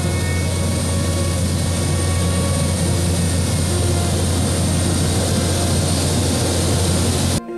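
Steady engine and airflow drone of a small plane in flight, heard from inside the cabin, with a strong low hum under it. It cuts off abruptly near the end.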